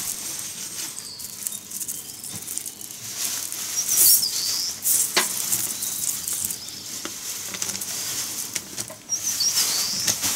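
Dry natural-material model tree branches rustling and crackling as they are torn apart by hand over newspaper, with a few sharper snaps.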